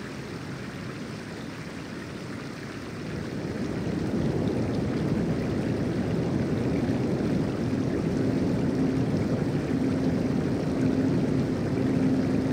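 A steady rushing noise, growing louder about three to four seconds in, with a faint steady tone joining in the second half.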